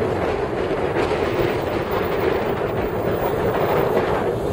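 Steady road and wind noise heard from inside a moving car: an even rush with no distinct events.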